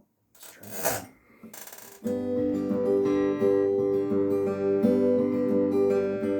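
Acoustic guitar starting the song's intro about two seconds in, playing steady chords. Two short noises come just before it.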